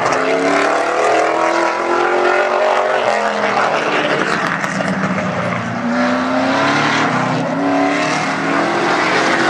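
Street stock race car engine running hard on a qualifying lap. Its pitch rises under acceleration and drops as the driver lifts, twice.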